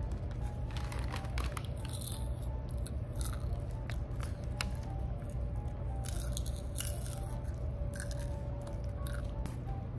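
Popcorn being chewed with the mouth open close to the microphone: a run of crisp, irregular crunches and wet chewing.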